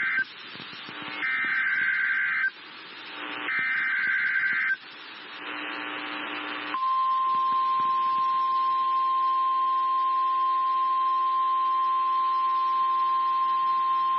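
NOAA Weather Radio Emergency Alert System signal for a tornado warning. After the tail of one burst come two more SAME digital header bursts, each a harsh warbling screech about a second long, separated by radio hiss. About seven seconds in, the steady 1050 Hz warning alarm tone starts and holds.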